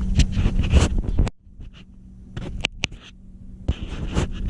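Scraping and rubbing handling noise from a handheld GoPro being maneuvered into position, with sharp clicks; the noise drops away abruptly about a second in, leaving a few separate clicks before the rubbing picks up again near the end.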